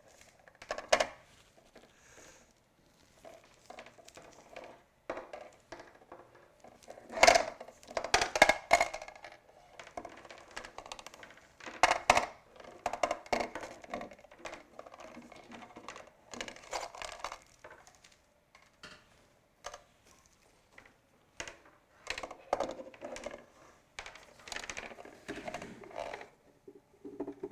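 Irregular clicks, knocks and rattles of a Singer 4423 sewing machine and its hard plastic parts being handled and set up, with the loudest knocks about seven and twelve seconds in. The machine is not running.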